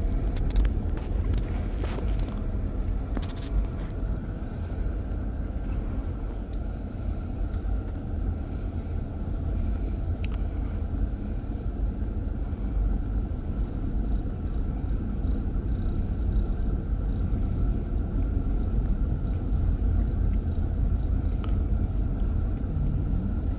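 Car driving slowly, heard from inside the cabin: a steady low rumble of engine and tyres, with a few light clicks in the first few seconds.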